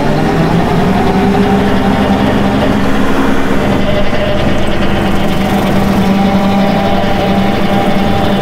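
John Deere 4052 compact tractor's diesel engine running steadily under load while it drives a Woods 7-foot rotary cutter off the PTO through tall grass. The engine pitch rises a little in the first second, then holds steady.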